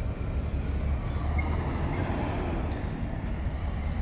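A car engine running close by, a low rumble that swells about two seconds in as a vehicle moves past.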